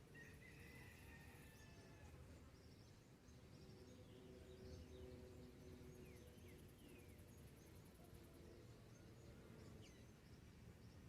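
Faint dawn countryside ambience: scattered short bird chirps and a high insect trill over a low steady rumble.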